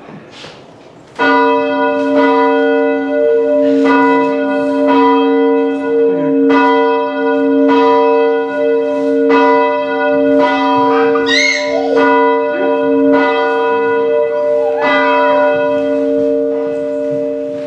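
Church bell rung to open the service. It starts about a second in and is struck about once a second, each stroke ringing on into the next.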